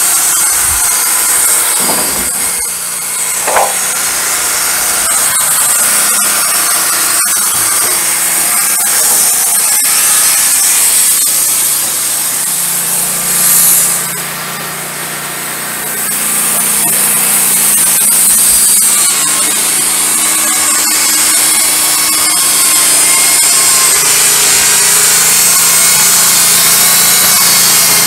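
Wood-Mizer LT15 Go portable bandsaw mill running loud and steady, its engine and spinning band blade making a constant noise. A few sharp wooden knocks come over it as cut boards are handled.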